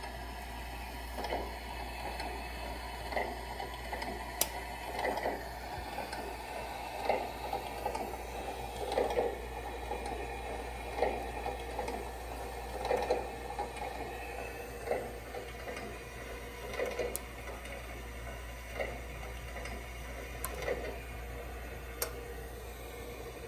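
Light handling noise: soft taps and rubbing at irregular intervals, about every second or two, with a few short sharp clicks, over a steady faint hiss.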